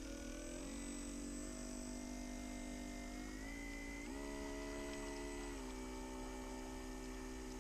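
Small electric motor humming steadily; its pitch steps up several times and drops back once about two-thirds of the way through, as the throttle is changed.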